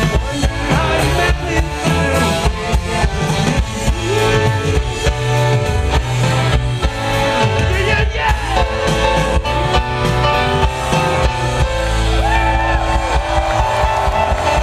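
Live rock band playing a piano-led song through a large stage sound system, with drums and singing, heard from within the audience.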